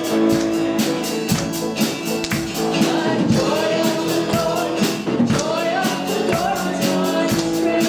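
Church worship band playing a song with singing voices, over a steady percussive beat with tambourine.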